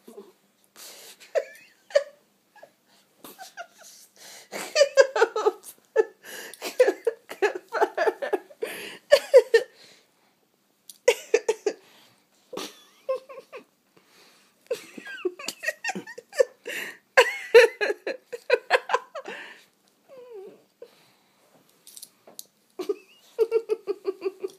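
A person giggling and laughing in quick repeated bursts, in several runs with short pauses between them.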